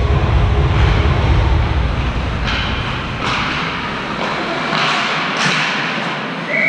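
Ice hockey game in play: a low rink rumble with several short hissing scrapes of skates on the ice and a few thuds.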